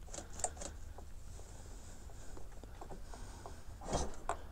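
Faint clicks and light knocks of handling, with one soft thump about four seconds in; the dirt bike's engine is not running after a start attempt that nearly caught.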